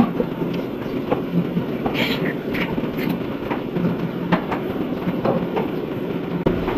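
Dairy milking-shed machinery running steadily, with scattered clicks and clanks.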